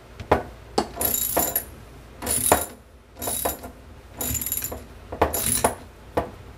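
Socket ratchet clicking in about five short runs, roughly one a second, with a few single clicks between. It is the back-swings of a ratchet turning a 9/16 deep-well socket to unscrew the male Foster fill fitting from an air rifle's air tube.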